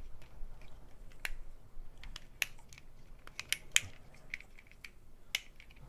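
Sharp plastic clicks of a Rubik's Twist (Rubik's Snake) as its segments are twisted, a dozen or so clicks at an irregular pace.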